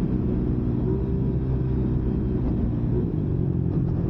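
Motorcycle engine running through a JVT V4 teardrop aftermarket exhaust pipe while riding, a steady exhaust note with strong wind noise on the microphone.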